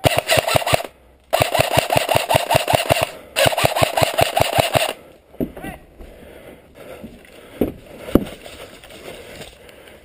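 Airsoft electric rifle firing on full auto in three bursts, a short one then two of about two seconds each, each a fast even rattle of shots. After that the firing stops and only a few scattered knocks are heard.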